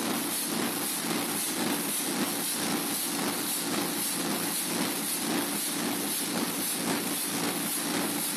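The 1933 Burmeister & Wain diesel engine running steadily in its engine hall. It keeps an even, rapid beat over a constant mechanical hum.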